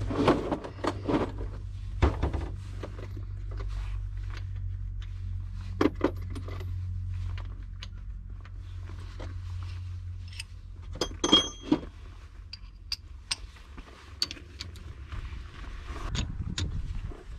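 Metallic clicks and clinks of wheel nuts being unscrewed and handled on a camper van's steel wheel, with one ringing clink about eleven seconds in. A low steady hum runs underneath for the first half.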